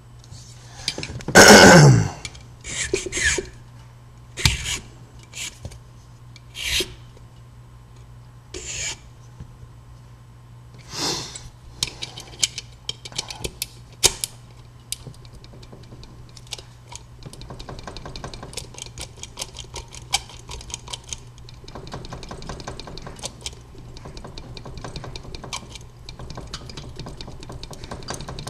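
Metal hand-tool work on a key blank held in vise grips: a loud scrape about a second and a half in, then scattered knocks and clicks, then from about halfway a long run of quick back-and-forth strokes from an old, worn pippin file as the marked wafer positions are filed down during impressioning.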